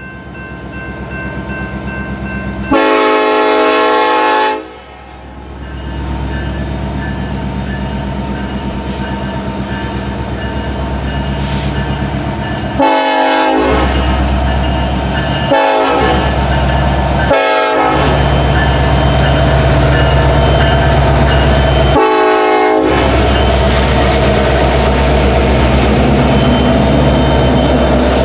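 Norfolk Southern freight train's diesel locomotives approaching and passing, their engine rumble growing steadily louder. The locomotive horn sounds five times: one long blast about three seconds in, then four shorter blasts between about 13 and 23 seconds in.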